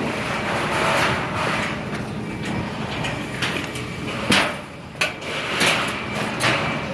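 Scaffold-building work: a run of sharp knocks and clanks in the second half, over a steady background of construction noise.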